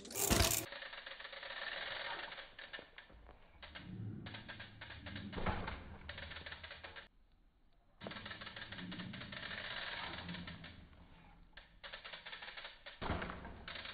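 Mountain bike's rear freehub ticking rapidly as the bike rolls and coasts on dirt, pausing for about a second midway. Sharp thumps of the wheels landing from bunny hops, the loudest just after the start and another near the end.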